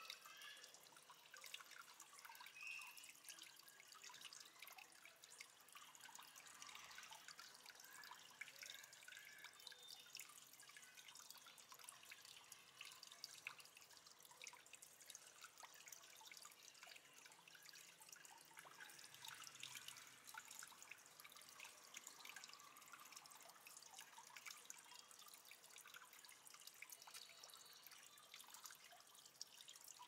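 Faint trickling and dripping water from an aquarium waterfall: a steady, dense patter of small drops and splashes.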